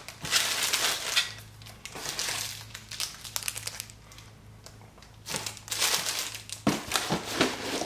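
Thin clear plastic bags crinkling as small bagged toy figures are handled, in several bursts of rustling.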